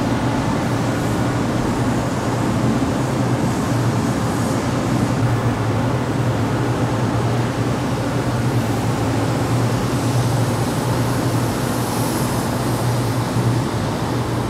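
Industrial exhaust fan running steadily: a constant rush of air over a strong low hum.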